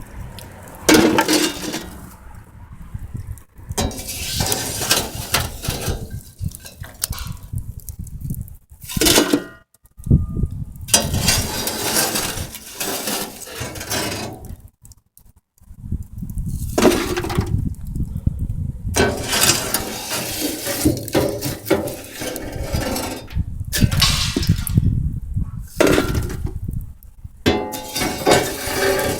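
Metal shovel scraping and clanking against the steel firebox of a furnace-built wood stove as ash and embers are scooped out and dropped into a metal pot. The scraping comes in repeated bouts of several seconds, with short pauses between them.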